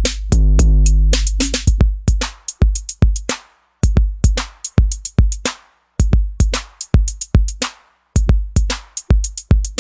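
Roland TR-808 drum-machine loops: deep 808 kick drums with snare or clap and hi-hat hits in a programmed beat. A held pitched bass tone runs under the beat for about the first second and a half, then the drums play alone in short phrases with brief silent gaps between them.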